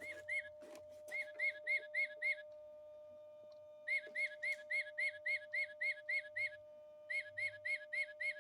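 Tufted titmouse song played back from a recording: three runs of identical clear whistled notes, about four a second, separated by short pauses, over a faint steady hum.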